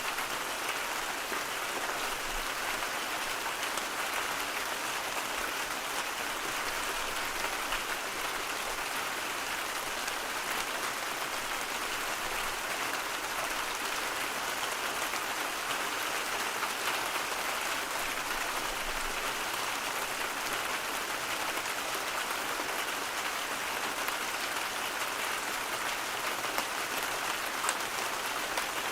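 Steady white-noise track: an even, unchanging hiss like rain, with faint fine patter in it.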